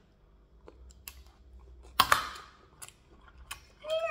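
Close-up chewing of a mouthful of rice and soup, with scattered wet mouth clicks and a loud sharp double smack about halfway. Near the end comes a short appreciative 'mmm' that rises and falls in pitch.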